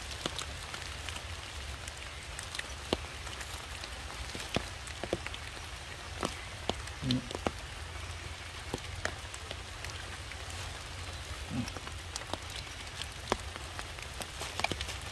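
Rainwater dripping onto wet leaves and stones after a shower: scattered, irregular drip ticks over a steady hiss and low rumble.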